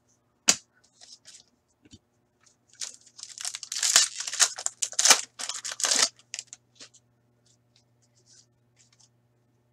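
Foil wrapper of a hockey card pack being torn open and crinkled by hand: a dense burst of tearing and crackling that lasts about three seconds in the middle, with a few light clicks before and after.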